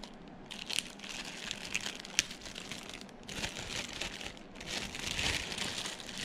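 Thin clear plastic bag crinkling as hands pull it off a small speaker. The crackling comes in several irregular spells with short lulls and sharp ticks.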